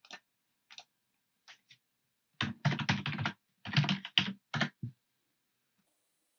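Computer keyboard typing: a few single clicks, then a quick run of keystrokes as a login password is entered, stopping about five seconds in.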